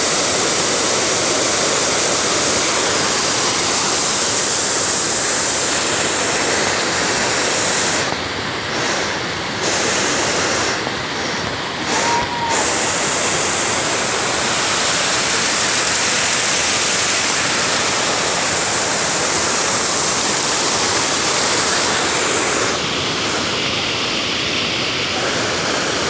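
Waterfall's steady roar of water plunging down a rocky gorge, dipping a little in level a couple of times midway.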